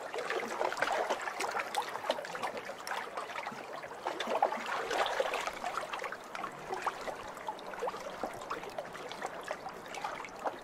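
Swimming-pool water lapping and trickling at the pool edge: a steady run of small splashes, plinks and gurgles.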